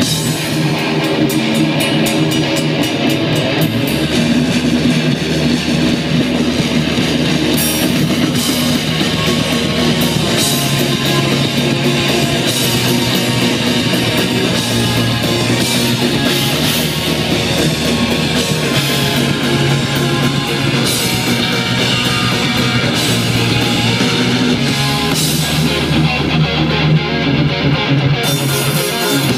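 A rock band playing live: electric guitars and a drum kit, loud and continuous.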